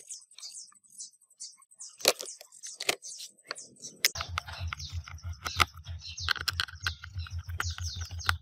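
Small clicks and cracks of parts being handled, then about four seconds in a small electric motor starts and runs steadily with a fast low pulse, scratchy scraping noise over it.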